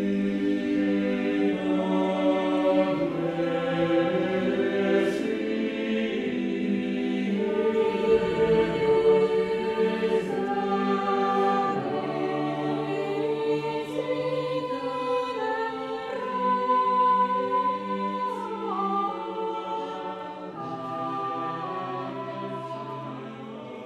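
Church choir singing, with long held chords that move slowly from one to the next and grow quieter near the end.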